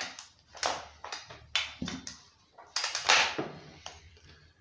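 A series of short clicks, knocks and scrapes from hands and tools working on the plastic and metal parts of a Husqvarna 137 chainsaw during disassembly. The loudest, longer scrape comes about three seconds in.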